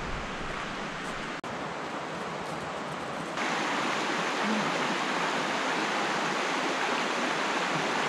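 Rushing water of a river running over rocks, a steady dense wash of noise. It breaks off for an instant about a second and a half in and is louder from about three seconds in.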